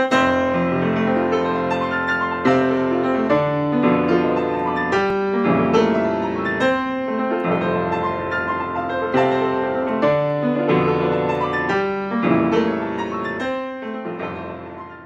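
Piano music playing a series of chords, fading out near the end.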